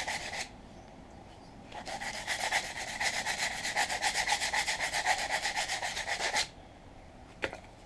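Sandpaper rubbed by hand over a wooden hatchet handle in quick back-and-forth strokes: a short run, a pause, then a longer steady run of about four and a half seconds. A single light knock near the end.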